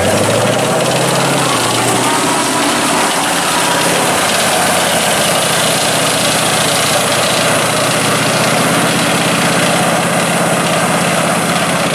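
Jaguar 1 tank destroyer's diesel engine running steadily as the tracked vehicle drives past and away over concrete.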